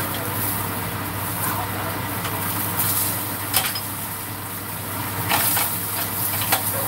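Abalone sizzling in hot oil in a frying pan, with a few sharp clicks of chopsticks against the pan as the pieces are turned, over a steady low hum.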